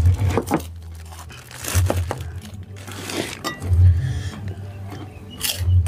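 Eating at the table: kerupuk crackers crunching between the teeth and spoons clinking on plates in scattered sharp clicks. Underneath runs a low booming pulse about every two seconds.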